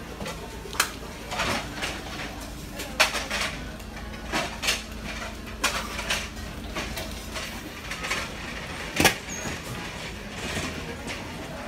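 Buffet-restaurant clatter: china and cutlery clinking in scattered sharp knocks, the loudest about three seconds in and near nine seconds, over a steady low hum.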